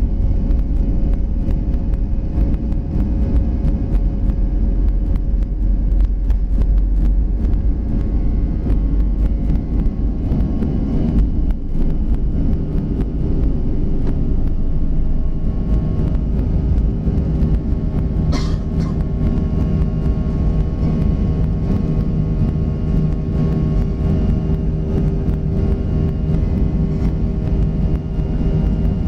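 Inside the cabin of a Boeing 737-400 on takeoff: its CFM56 jet engines run at takeoff thrust over a heavy rumble from the runway. The rumble eases about a dozen seconds in as the plane lifts off, leaving a steady engine drone with a hum in it as it climbs. A brief sharp high sound comes about eighteen seconds in.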